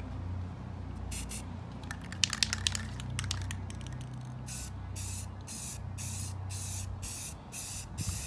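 Aerosol spray-paint can: a few sharp rattling clicks as it is shaken, then from about halfway short hissing bursts of spray, roughly three a second, as the paint goes onto a metal frame. A steady low hum runs underneath.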